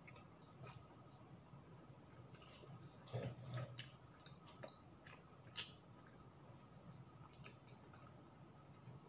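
Faint eating sounds of a meal eaten by hand: scattered small mouth clicks and chewing, with a short louder cluster of clicks and rustling about three seconds in as fingers pick food from the plate, and one sharp click a little later.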